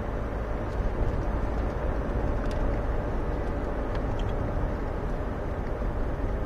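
Citroën BX 14 RE on the move, heard from inside the cabin: a steady engine and road rumble, with a few faint clicks from the car about two and a half and four seconds in.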